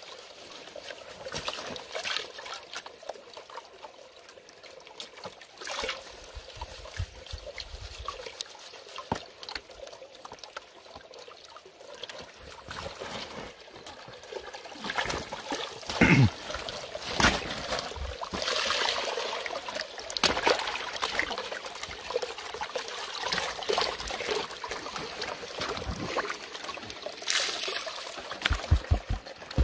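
Water sloshing, trickling and splashing as sediment is swirled and washed in a green plastic gold pan, with a louder splash about sixteen seconds in.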